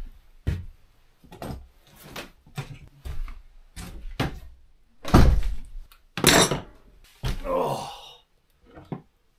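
Boot footsteps on a wooden floor, about two a second, followed by a few louder thumps and rustling as a person sits down on the floor.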